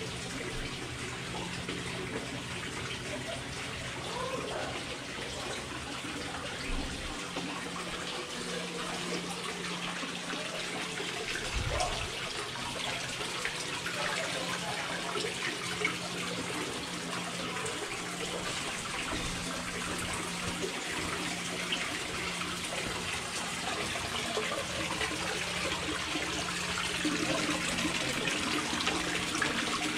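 Water from a small artificial waterfall splashing steadily over rocks into a pebble-bottomed pond, a little louder near the end.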